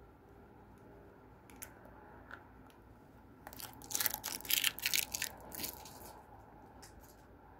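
Clear plastic peel-off protective film on a Topps Finest chrome card crackling and crinkling as it is peeled away and handled: a few light ticks, then a dense run of sharp crackles for about two and a half seconds from midway.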